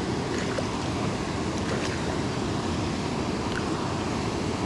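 Steady low rushing of wind buffeting the microphone, with a few faint ticks.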